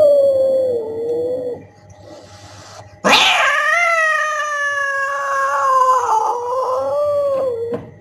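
Orange-and-white domestic cat yowling: one long call tails off about a second and a half in, then after a short pause a second drawn-out, wavering yowl starts sharply and runs almost five seconds.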